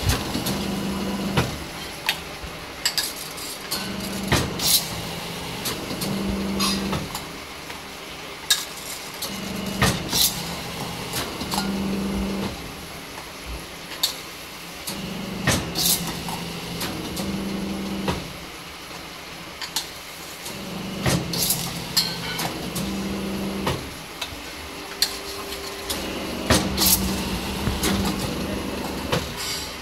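Beading machine running: a motor hum that starts and stops in spells of about a second, roughly every two to three seconds, with sharp clicks and knocks in between.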